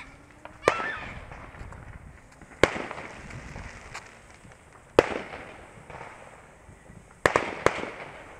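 Fireworks going off: five sharp bangs a couple of seconds apart, the last two in quick succession, each trailing off in an echoing rumble.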